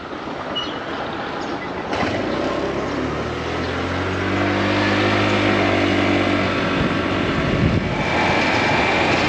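Motor vehicle engine running with road noise while driving. The engine pitch rises and falls over a few seconds in the middle.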